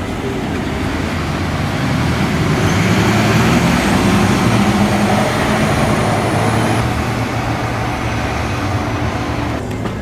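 Articulated city bus's engine running as it drives past, growing louder to a peak a few seconds in and then easing off, with road traffic noise behind it.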